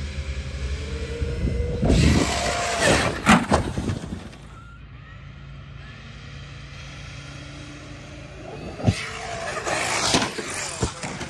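Brushless RC monster truck accelerating in bursts, a rising motor whine over a rushing noise twice, with a single sharp knock about nine seconds in.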